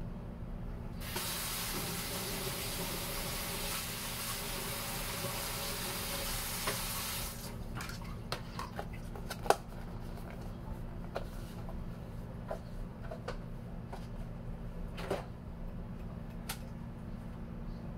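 Kitchen sink faucet running for about six seconds, then shut off sharply, followed by scattered light clicks and knocks, one louder knock about halfway through.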